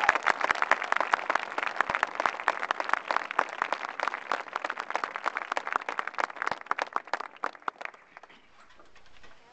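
Audience applauding, thinning to scattered claps and dying away about eight seconds in.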